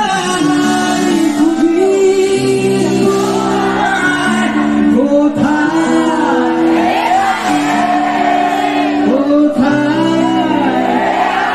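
Male singer singing live into a microphone over amplified backing music, his voice sliding and wavering above sustained chords that change every second or two.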